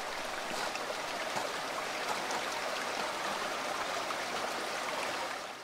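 A stream rushing steadily: an even, unbroken watery hiss.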